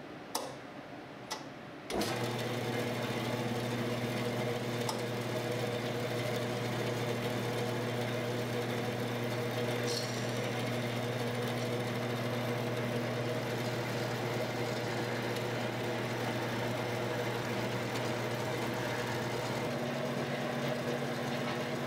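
Two light clicks, then about two seconds in a horizontal metal bandsaw with its replacement coolant pump switches on and runs with a steady electric hum. Coolant is being pumped through the hose, the test of the repaired pump joints.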